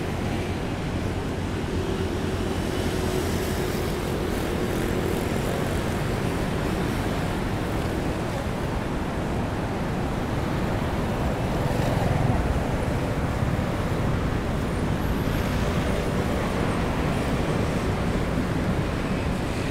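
Steady wash of breaking surf and rain, with a wave swelling louder about twelve seconds in.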